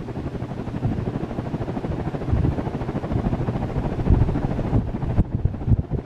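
Hunter Original ceiling fan running, its blades turning with a low, unsteady whooshing rumble of moving air.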